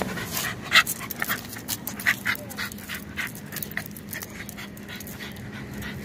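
A dog panting hard as it tugs on a rope leash, with a quick run of short, sharp breath sounds in the first three seconds, then steadier panting.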